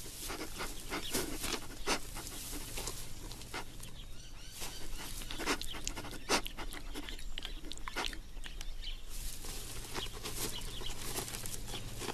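Male red kangaroo sniffing at a female to check whether she is ovulating: short, irregular sniffs a few times a second.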